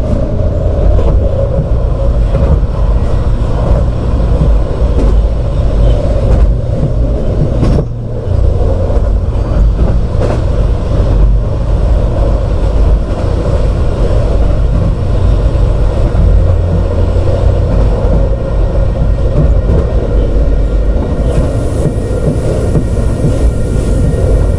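A steady, loud, low rumble with a droning band in the middle range. There is a brief dip with a few clicks about eight seconds in, and faint high steady tones join near the end.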